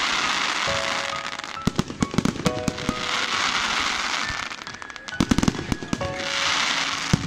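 Aerial fireworks display: clusters of sharp bangs from bursting shells alternate with long crackling, hissing showers from crackling stars, while music plays underneath.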